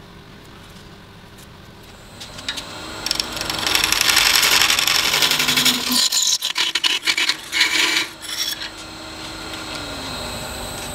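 Laguna 18|36 lathe motor starting up about two seconds in. A turning tool then scrapes the spinning wood-and-resin mug, first as a loud steady hiss, then in short separate strokes. After that the lathe runs on alone with a steady whine that drops in pitch near the end as it slows.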